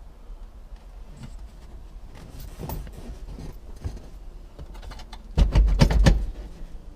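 Hand tools backing out two long bolts from a car floor: scattered metallic clicks and knocks, then a loud burst of rapid clicking with a low rumble about five and a half seconds in.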